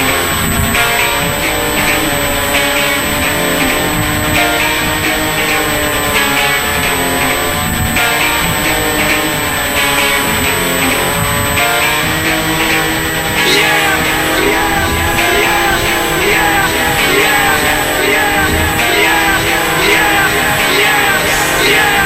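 Rock music with guitar, with a steady beat that grows busier about halfway through.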